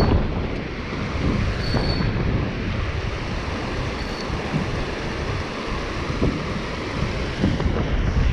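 River water rushing over a rocky riffle, with gusty wind buffeting the microphone in uneven low rumbles.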